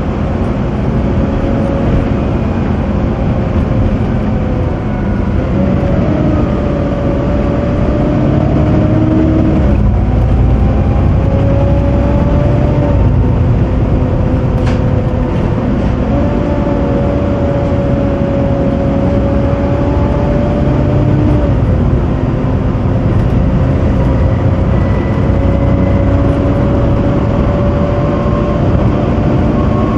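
Volvo B7TL double-decker bus driving, heard from the upper deck: steady engine and road rumble under a loud cooling fan, with whining tones that step up and down in pitch, and a deeper rumble that grows about ten seconds in as the bus pulls harder.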